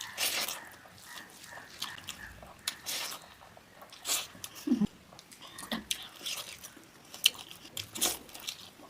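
Close-miked eating: irregular biting, chewing and mouth clicks, with a short voiced sound a little under five seconds in.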